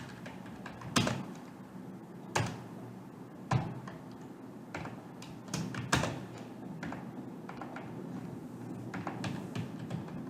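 Scattered sharp clicks and taps from a computer keyboard and mouse, the loudest four about 1, 2.5, 3.5 and 6 seconds in, over a low steady room hum.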